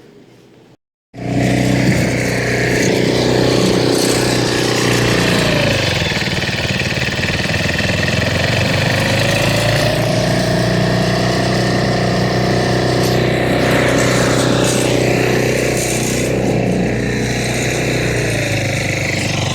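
An engine running steadily, starting abruptly about a second in, with its pitch dipping briefly twice, about five seconds in and near the end.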